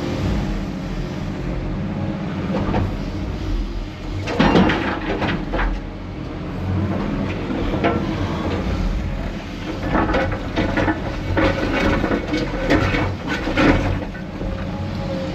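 Heavy diesel machinery running steadily, with two spells of clattering knocks and bangs, one about four seconds in and the other from about ten seconds in, as chunks of concrete are dropped from an excavator's demolition grab into a dumper's body.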